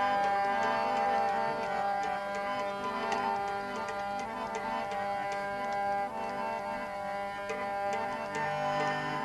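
Instrumental interlude of a Gujarati santvani bhajan: tabla strokes in a steady rhythm under a melodic instrument holding sustained notes, with no singing. A lower held note comes in near the end.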